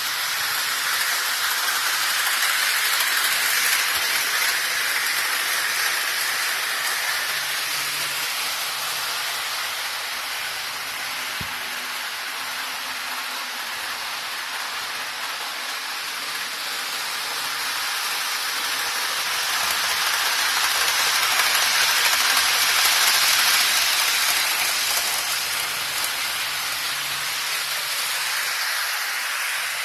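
Model train running on a layout's track: a steady rushing, rattling hiss of wheels and motor that swells twice as the train comes close, about three seconds in and again a little over twenty seconds in.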